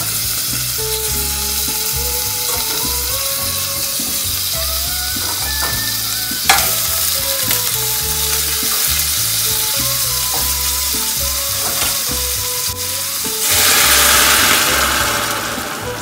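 Onion, ginger and garlic sizzling in hot oil in a stainless steel pot as boiled pork hocks are added, with a single sharp click about six and a half seconds in. Near the end a louder rushing hiss comes in as boiling water is poured into the pot.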